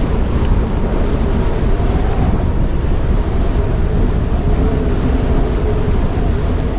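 Gale-force wind of about 38 knots buffeting the microphone: a loud, unbroken rush with a heavy low rumble.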